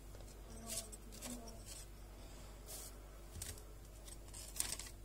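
Baking parchment rustling and crinkling in about five short, faint scratches as hands lift and handle cut shortbread dough on it.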